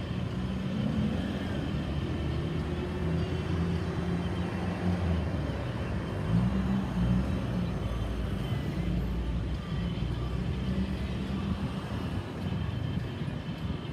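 Road traffic: vehicle engines running as a steady low rumble, with no clear siren standing out.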